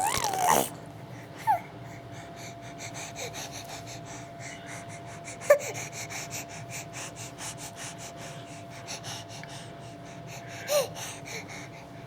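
A baby making wheezy, rapid breathing noises, broken by three short high squeaks: one in the first couple of seconds, one in the middle, one near the end. A louder vocal sound trails off right at the start.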